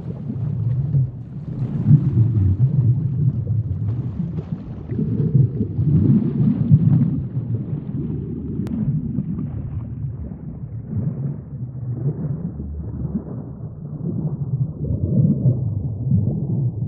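Muffled underwater sea ambience: a low rumbling wash that swells and eases every few seconds.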